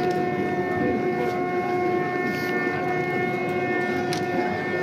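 Din of a large crowd with a single long note held steady above it, together with its overtones.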